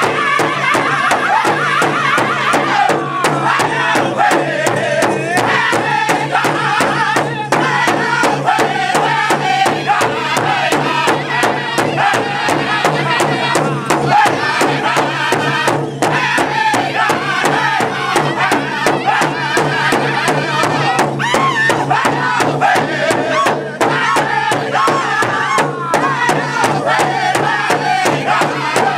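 Powwow drum group: several men striking one large shared drum in unison with drumsticks in a steady, even beat while singing together in high, wavering voices in the northern style.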